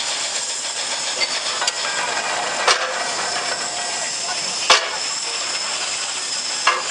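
Heritage steam shovel at work: a steady steam hiss with a few sharp knocks about two seconds apart, the loudest midway.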